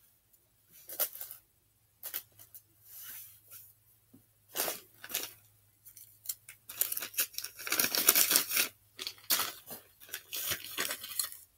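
Scratchy crinkling and scraping handling noise from small sculpting tools working a craft piece, in short irregular bursts that grow denser in the second half.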